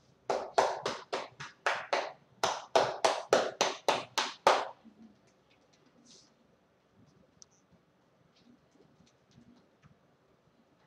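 Massage percussion strokes (tapotement): hands striking a seated person's clothed back and shoulders in quick sharp slaps, about three a second. There are six, a brief pause, then about nine more, stopping about halfway through.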